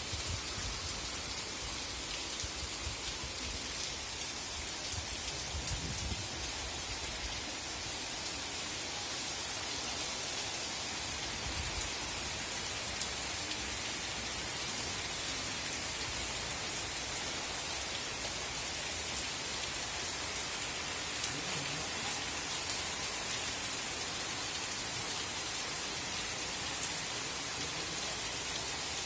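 Steady rain falling, a continuous even hiss of rain on paving, roofs and trees.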